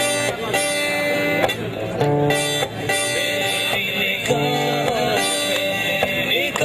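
Acoustic guitar strummed, one chord after another, with the chord changing every second or so.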